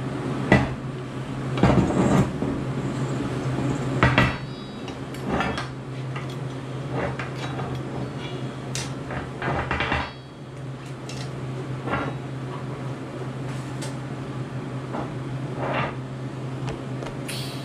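Cast-iron Volvo turbo exhaust manifold clanking and scraping on a steel welding table as it is shifted into position with pliers, with about eight separate metal knocks spread through, over a steady low hum.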